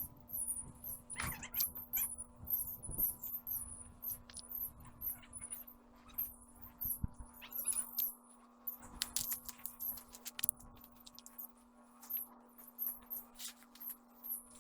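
Very high-pitched chirps repeating rapidly, several a second, with a few scattered knocks and a faint steady hum underneath.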